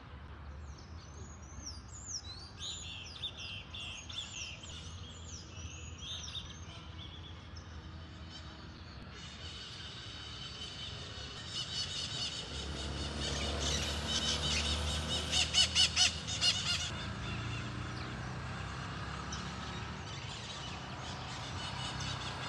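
Birds calling: a string of repeated, falling high chirps in the first several seconds, then denser, louder chattering from about nine seconds in that peaks around fifteen to sixteen seconds and then eases off, over a low background rumble.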